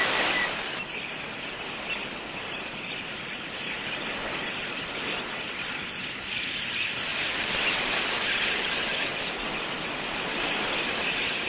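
A flock of wild budgerigars chattering: many small, high chirps overlapping into a steady twitter, with a brief louder rush in the first second.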